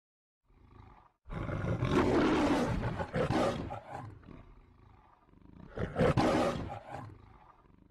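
An animal roaring twice, each roar a few seconds long, loudest at its start and fading away, after a faint lead-in sound.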